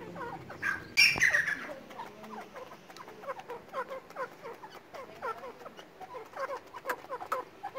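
White grey francolins (teetar) making soft, short chirping calls while feeding, about three a second, each call falling slightly in pitch. About a second in there is one louder, higher call.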